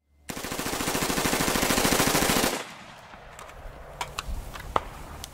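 A long burst of full-automatic fire from an H&K G36 5.56 mm rifle, a rapid even string of shots lasting a little over two seconds and cut off sharply. A few scattered faint clicks and knocks follow.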